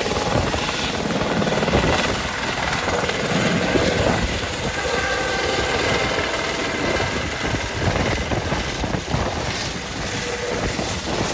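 Airbus H130 helicopter with its ducted Fenestron tail rotor lifting off and climbing away overhead, its engine and rotor noise steady with a faint whine running through it. The noise eases slightly near the end as it moves off.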